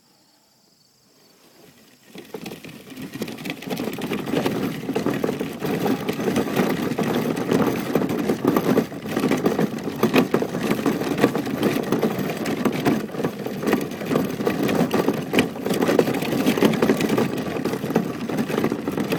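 Children's ride-on toy car driving over rough ground: a continuous loud rattling and crunching of plastic wheels and body that starts about two seconds in.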